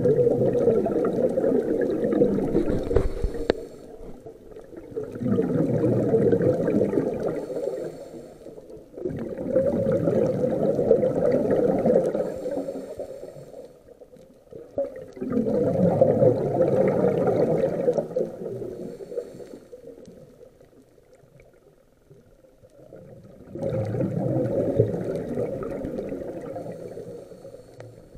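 Scuba regulator exhaust bubbles from a diver breathing out underwater, heard through the camera housing as a rush of bubbling. It comes five times, each exhalation lasting about three seconds, with quieter gaps between for inhaling and a longer pause before the last one.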